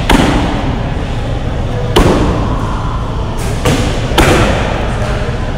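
Hard kicks thudding into a padded kick shield held by a partner: three heavy smacks about two seconds apart, with a lighter hit between the second and third.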